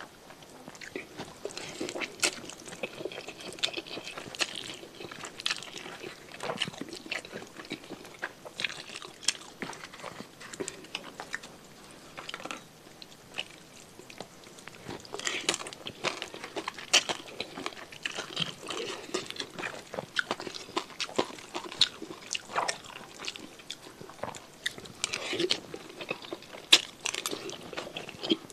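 Close-miked eating of sauce-soaked instant noodles and chicken-feet satay: wet chewing, crunching and slurping, with many sharp mouth clicks and smacks, busier in the second half.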